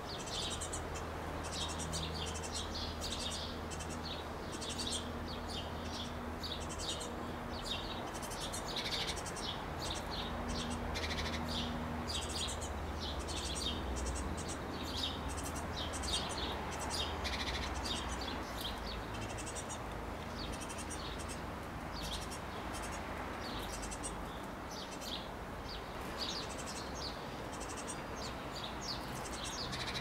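Small songbirds chirping: short, high calls several times a second, without a break, over a low steady hum.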